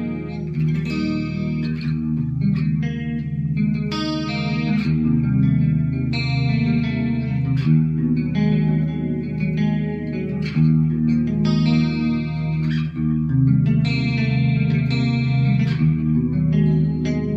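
Solid-body electric guitar played with a clean tone, chords picked and strummed about every one to two seconds and left ringing into each other.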